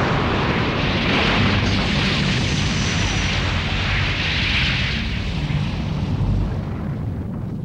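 Explosion sound effect for an animated film: a long, continuous rumble of blasts and debris that swells about four seconds in and cuts off near the end.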